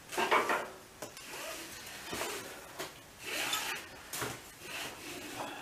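Workshop handling noises: several short, irregular bursts of rubbing and scraping with a few sharp clicks.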